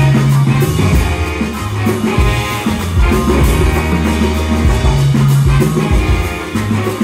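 Live band playing an upbeat, Latin-tinged groove: a trombone and saxophone horn section with a Nord Stage 3 keyboard over a bass line that moves every second or so and a steady drum beat.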